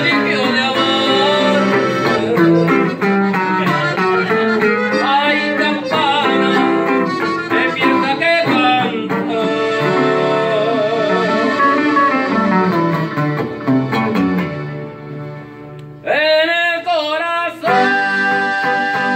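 Live conjunto music: button accordion and bajo sexto playing a slow bolero. Near the end the music dips, then a man's voice comes in singing long, wavering held notes.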